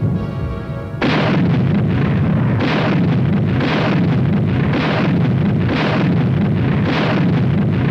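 Tank guns firing as artillery: a continuous rumbling barrage with a heavy report about once a second. It starts abruptly about a second in, cutting off music.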